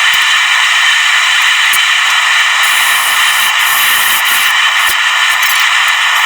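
A shop machine running steadily with a loud hissing whir and a few faint clicks.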